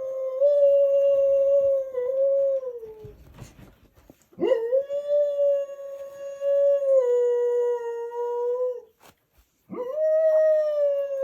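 A dog howling in long, drawn-out howls, each scooping up in pitch and then held for about four seconds. The first is already under way and ends about three seconds in, the second runs from about four to nine seconds, and the third starts near the end.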